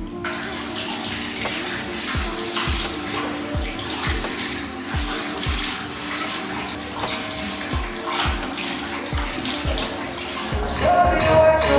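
Bathroom tap running into a sink, the water splashing as soap is rinsed off the face, over background music with a steady beat.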